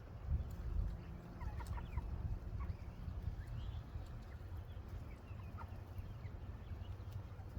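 Meat chickens clucking softly in short, scattered calls, over a steady low rumble.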